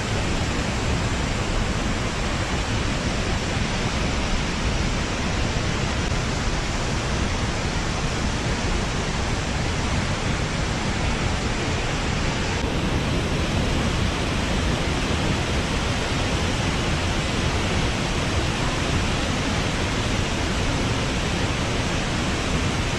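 Waterfall: the steady rush of falling water, loud and unbroken, turning slightly brighter in tone about halfway through.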